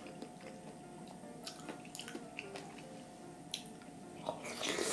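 A person chewing with small wet mouth clicks, then slurping up a mouthful of Chinese glass noodles from spicy chicken-feet broth in one loud slurp near the end.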